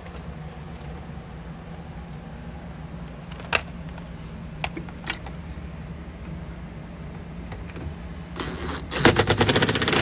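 Power drill-driver driving a hinge screw into a refrigerator's bottom door hinge: a rapid, loud clatter that starts about eight and a half seconds in. A few sharp clicks of parts being handled come before it.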